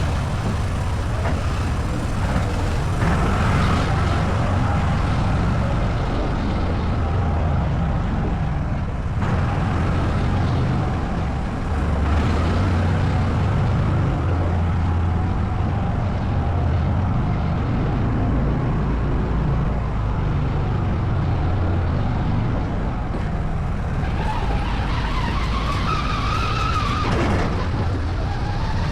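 All-terrain vehicle (ATV) engine running steadily while riding. Near the end the pitch rises and then falls as the engine revs up and eases off.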